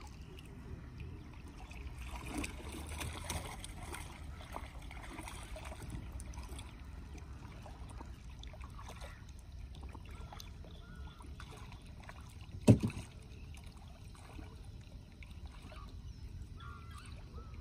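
Water trickling and sloshing as a fishing net is worked over the side of a small boat, with one sharp knock about two-thirds of the way through.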